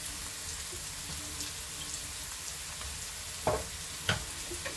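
Onions, curry leaves and whole spices sizzling steadily in hot coconut oil in a wok, with a couple of short taps about three and a half and four seconds in.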